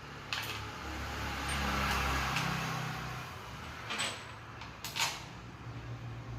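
A car engine running steadily, with a swell of noise about a second or two in and several sharp clicks or knocks, twice near the end.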